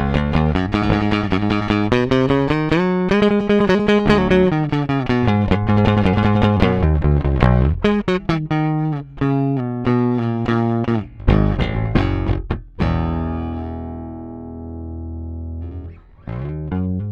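Bass guitar strung with Blacksmith bass strings, played solo: a quick run of plucked notes and chords, then a long note about 13 seconds in that rings out and fades, and a few short notes near the end.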